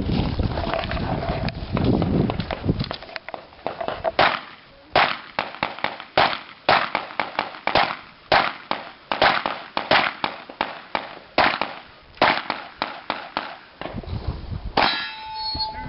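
A string of pistol shots, about two a second, each with a metallic ring of the kind steel targets give when hit. The first few seconds are low rumbling noise.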